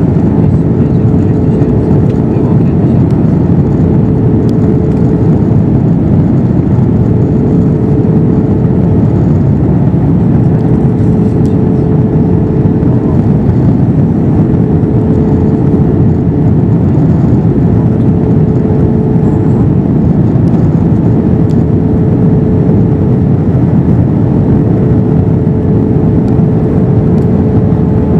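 Steady airliner cabin noise inside an Airbus A321-212 in flight: a continuous rushing drone of airflow and its CFM56 engines, with a steady hum held at one pitch on top.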